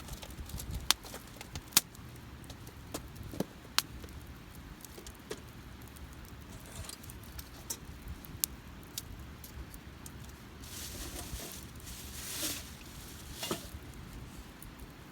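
Wood campfire crackling, with scattered sharp pops, the loudest about one, two and four seconds in, and a few softer rushing swells near the end.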